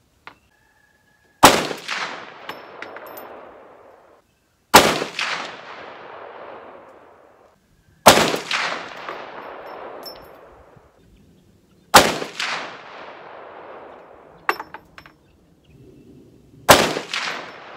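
Five single rifle shots from a 450 Bushmaster AR-15, fired a few seconds apart. Each sharp crack trails off in a long echo lasting a few seconds.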